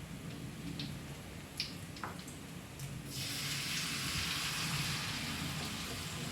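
Hot oil sizzling as food goes into the frying pan: a few light clicks, then a loud, steady sizzle that starts suddenly about three seconds in.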